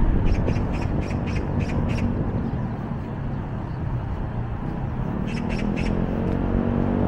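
A bird giving rapid runs of short harsh calls: a quick series in the first two seconds and about three more around five seconds in, over steady low city traffic noise.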